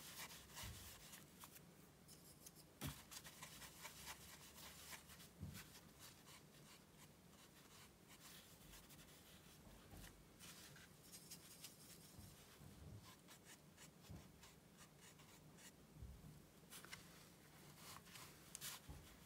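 Faint scratching and tapping of a watercolour brush working paint into rough cotton rag paper, with a few light knocks about three and five seconds in.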